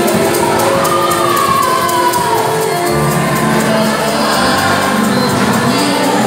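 Live gospel worship music: a man sings into a microphone over the band, with other voices singing along behind him.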